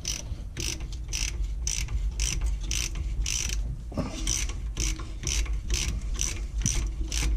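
Socket ratchet wrench clicking in a steady rhythm, about three clicks a second, as it is swung back and forth on a bolt of the rear brake assembly.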